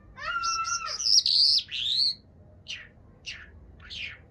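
A bird singing: two arched, ringing notes, then a loud burst of high chirps about a second in, followed by three short thin notes spaced about half a second apart.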